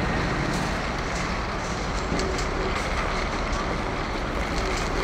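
Steady outdoor traffic noise from cars around a car park, with a few faint clicks through it.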